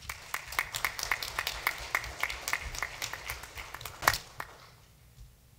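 Applause, with individual hand claps distinct, dying away about four and a half seconds in. One sharp, much louder knock comes about four seconds in.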